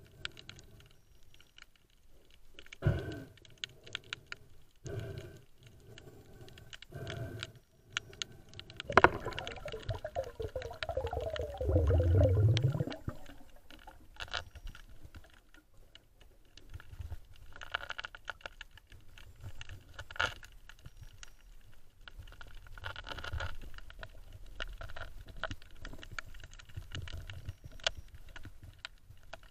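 Underwater handling noise picked up by a diver's camera: sharp knocks about every two seconds, then a louder rushing, rumbling stretch about nine seconds in, followed by scattered clicks and scrapes.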